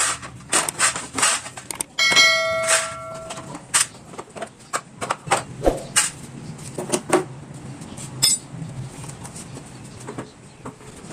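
Metal hand tools and loose metal parts clinking and knocking during motorcycle disassembly. About two seconds in, one metal piece rings out with a clear bell-like tone for over a second.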